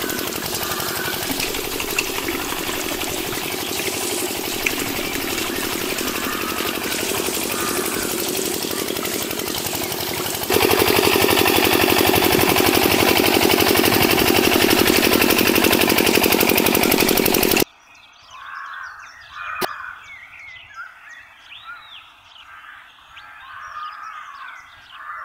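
Small DIY electric water pump running with its thin water jet spraying onto a toy tractor, a steady whir and hiss that grows louder about ten seconds in and cuts off suddenly about eighteen seconds in. Birds chirp throughout and are left alone after the cutoff.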